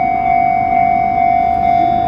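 Japanese level-crossing warning alarm ringing: one steady high electronic tone that swells about twice a second, over a low rumble.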